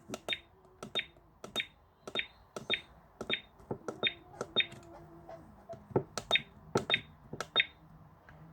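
Buttons on a children's instant-print digital camera being pressed over and over: about fifteen sharp clicks, roughly two a second, each with a brief high chirp.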